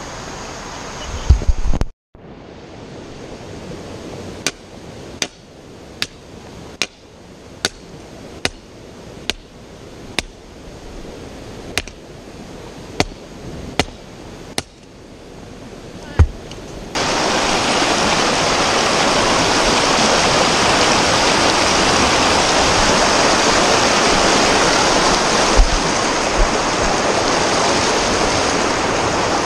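Creek water rushing over rocks, loud and steady from a little over halfway through. Before that, in a quieter stretch, a series of about a dozen sharp ticks comes a little more than once a second.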